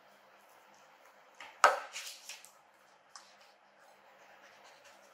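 Samoyed eating from a plate: a short burst of crunching, clicking bites about a second and a half in, the first one the loudest, and one more click about three seconds in.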